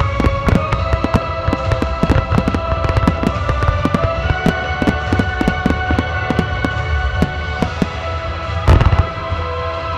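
Aerial firework shells bursting in rapid succession, several sharp bangs a second, with one heavier burst near the end, over music with long held notes.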